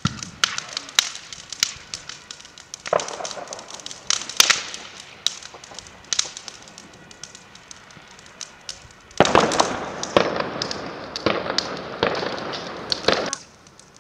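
Burning scooter crackling, with sharp pops throughout. About nine seconds in, a loud hissing rush starts and runs for about four seconds before cutting off suddenly.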